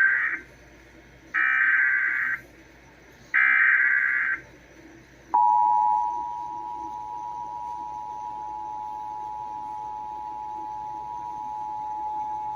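Emergency Alert System SAME header: three roughly one-second bursts of shrill, buzzing digital data tones, the first already under way. About five seconds in, the steady two-tone EAS attention signal (853 and 960 Hz) starts and holds, announcing a broadcast flash flood warning.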